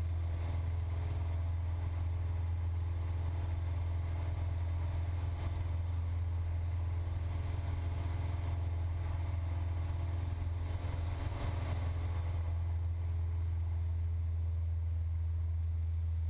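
Cessna 172's piston engine and propeller droning steadily, with a deep, even hum, during the climb-out after a go-around.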